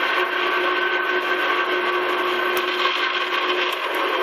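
Metal lathe running steadily, its motor and gearing giving a steady hum with a faint whine, while a tool cuts a thread groove into a urethane skate wheel. One of the whining tones drops out near the end.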